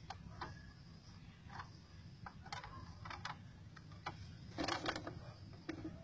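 Plastic bottle trap being handled and shifted on the dirt: scattered light clicks and crackles of plastic, with a denser, louder cluster near the end.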